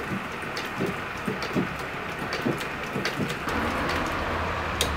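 Irregular clicks and soft knocks as a shoe is handled and worked under a cobbler's shoe-patcher sewing machine, over a steady hiss. A low steady hum comes in about three and a half seconds in.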